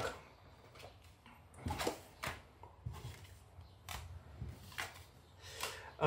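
Light taps, clicks and rustles of board-game cards and pieces being handled and set down on a table, a scattering of short separate knocks.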